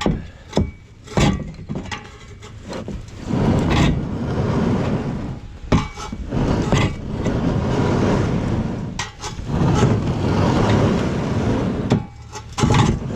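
Plastic kayak hull scraping and grinding across lake ice as it is pushed forward, in long rough strokes with short pauses between them. A few sharp knocks against the ice come in the first second or so.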